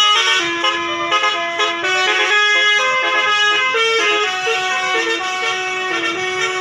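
Basuri telolet multi-tone horn playing a tune: a string of held notes that step up and down in pitch with no gaps.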